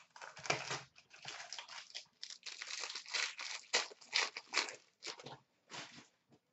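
Hockey card pack wrapper being torn open and handled, a run of irregular crinkling and tearing rustles that stop near the end.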